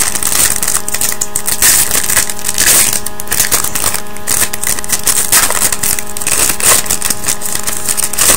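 Trading-card pack wrapper being torn open and crinkled by hand: a dense, irregular crackling that runs on for several seconds.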